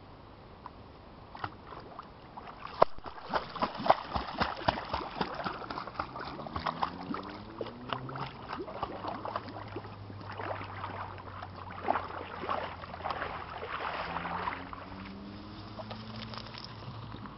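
A dog splashing and paddling through shallow creek water: a run of sloshing splashes starting about three seconds in, easing off near the end.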